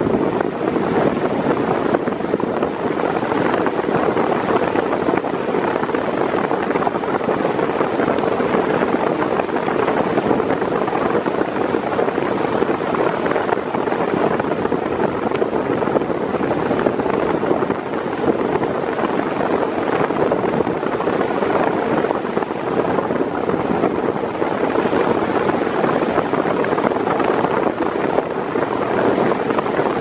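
Mondial 40 cm 140 W eight-blade electric fan running steadily at its maximum speed: a constant rush of air, with the blast striking the microphone held close to the grille.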